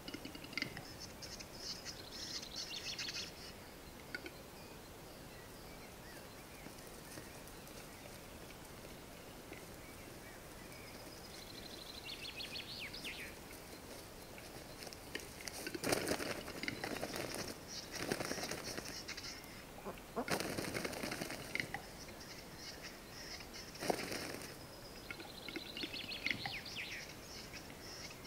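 Western capercaillie cocks displaying at a lek. Three short bursts of the display song, a rapid clicking and scraping, are heard high and thin. Several loud bouts of wing flapping from fighting cocks fall between them.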